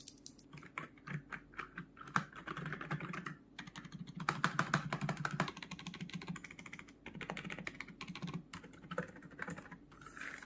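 Typing on an Ajazz AK992 mechanical keyboard fitted with silent, stem-damped switches: quick runs of soft keystrokes with brief pauses between bursts.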